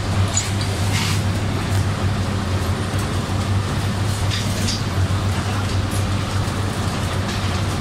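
Steady low drone of diesel machinery, the idling tractor engine and the sugarcane grab crane's drive, with a few brief crackles about half a second, one second and four and a half seconds in.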